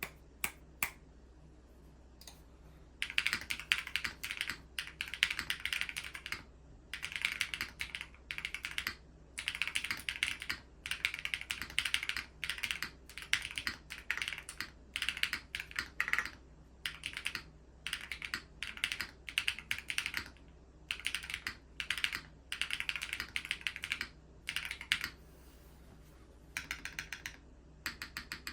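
Typing on a Geonworks F1-8X V2 custom keyboard with stock, unlubed Owlab TI Hall-effect switches on a 1.5 mm aluminium leaf-spring plate, with no foam inside: bursts of rapid keystrokes separated by short pauses.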